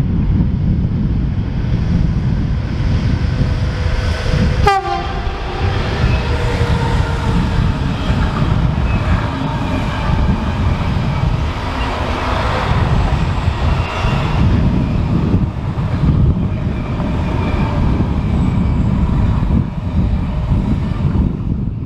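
Electric freight train of container wagons passing on a curve, its wheels and wagons rumbling steadily with high steady tones over the rumble and a brief sharp falling sweep about five seconds in; wind on the microphone.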